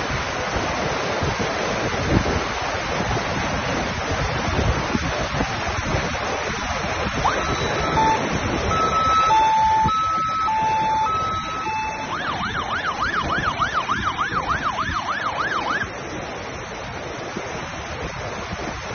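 Emergency vehicle siren sounding over a steady rush of heavy rain and flowing water. About seven seconds in it plays a two-tone hi-lo pattern, then switches to a fast warbling yelp of about three cycles a second, which stops some four seconds later.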